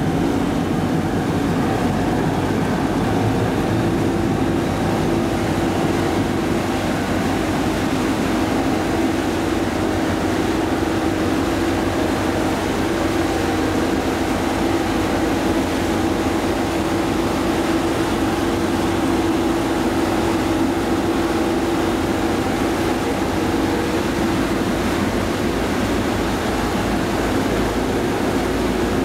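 Passenger ferry's engine running with a steady drone, its pitch and level unchanging.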